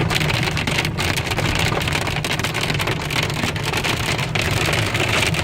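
Hail pelting a car's body and windshield, heard from inside the car as a dense, steady rattle of impacts over a low rumble.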